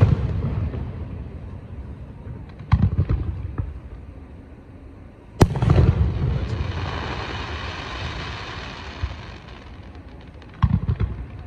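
Aerial fireworks shells bursting with sharp booms that rumble on after each. There is one at the start, another about 3 s in, the loudest about 5 s in and one near the end. The loudest burst is followed by several seconds of crackling hiss.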